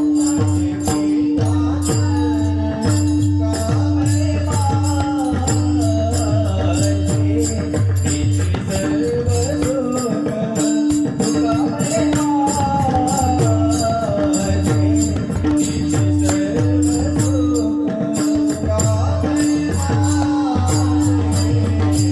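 Marathi devotional kirtan music: a voice sings a wavering melodic line over a steady held drone, with small hand cymbals (taal) striking a steady metallic beat and a low drum pulsing underneath.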